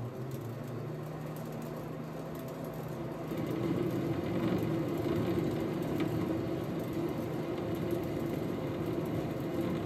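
Metal lathe running steadily, with a steady hum, while a high-speed-steel threading tool takes a 10-thousandths pass on a hardened grade 8 bolt. The sound gets louder about three and a half seconds in.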